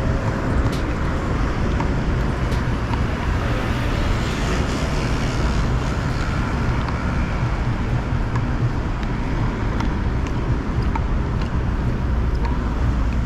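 Steady road traffic noise from cars passing along a city avenue, an even wash of sound with a low rumble.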